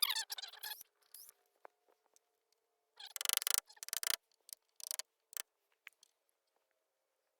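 Metal gate-latch hardware being handled and adjusted: squeaks and a scraping rasp in the first second, a harsher rasp about three seconds in, then a few short clicks and knocks.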